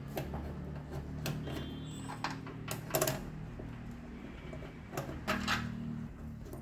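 Scattered sharp clicks and light knocks of plastic connectors, hose and a small metal clip being handled on a motorcycle fuel pump module as it is fitted into the tank, over a low steady hum.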